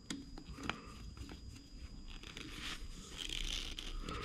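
Small metal clicks and scrapes of a hex driver turning the crankshaft end screw into a nitro engine's clutch, with a soft rubbing hiss about three seconds in and a sharper knock at the very end as the driver is laid on the bench.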